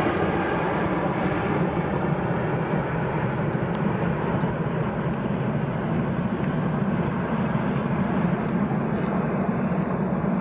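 Jet airliner's engines running at takeoff power during the takeoff, a loud, steady rushing drone.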